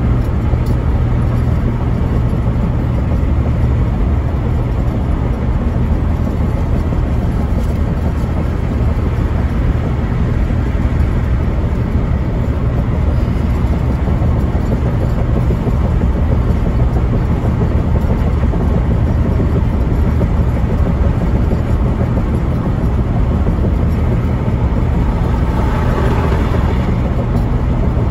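Steady road noise inside a car cruising at freeway speed: a continuous low drone of engine and tyres. Near the end a brief swell of hiss as another vehicle passes close alongside.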